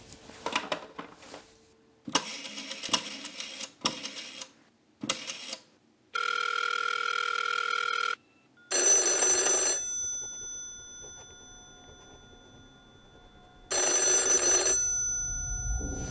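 Rotary telephone being dialled, a few short runs of clicking, then a steady buzzing tone of about two seconds. Then a telephone bell rings twice, about five seconds apart, each ring fading out slowly.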